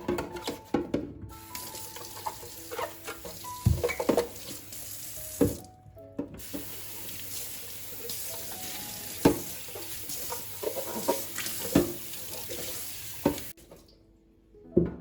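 Kitchen tap running into a sink while things are washed under it, with scattered clatters and knocks. The water stops briefly about six seconds in and is shut off sharply near the end. Soft background music plays underneath.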